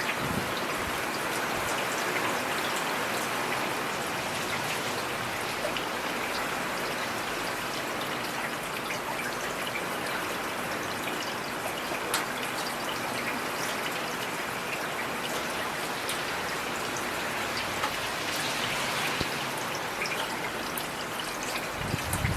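Heavy rain falling steadily, a dense even hiss with sharp individual drops ticking here and there. A brief low rumble comes near the end.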